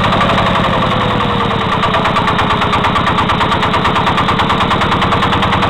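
Single-cylinder diesel engine of a walk-behind tractor running steadily with an even, rapid pulsing beat. It has a knock of unknown cause that began after the right-hand crankshaft counterweight worked loose and was tightened back.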